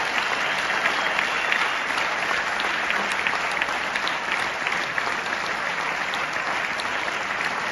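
Audience applauding: steady, dense hand-clapping from a large crowd, easing slightly toward the end.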